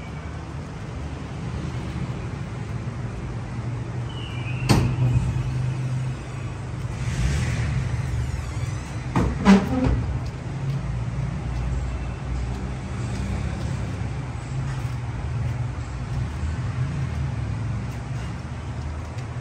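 A motor engine runs with a steady low rumble, with two sharp knocks about five and ten seconds in.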